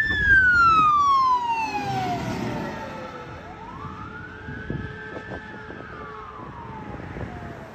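Fire engine siren wailing. The pitch slides slowly down over about three seconds, sweeps quickly back up, holds for a moment, then falls again near the end. A low engine and road rumble runs underneath.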